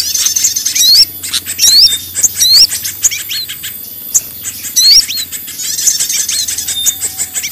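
A bird-lure recording of many small songbirds calling at once in a noisy commotion. High-pitched quick ticking calls and trills overlap with repeated short, rising whistled chirps.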